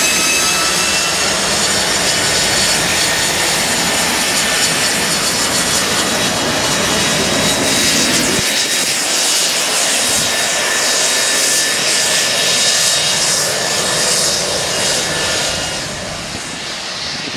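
Aero L-39 Albatros jet trainers' turbofan engines running as the jets roll along the runway: steady jet noise with a high turbine whine over it, the whine strongest in the first few seconds.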